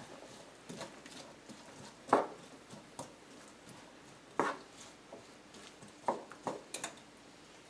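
A cooking utensil tapping and scraping against a frying pan in several irregular knocks while chopped onion is stirred in butter and oil. The loudest knock comes about two seconds in.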